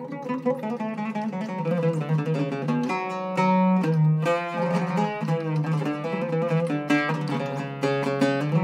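Cedar-top Iraqi-style oud with Pyramid strings played solo: a melodic passage of plucked notes, with one note held for about half a second a little past three seconds in.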